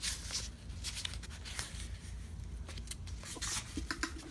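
Green willow bark being pried and peeled from the wood by hand, with irregular soft crackling, rubbing and small clicks as the bark separates.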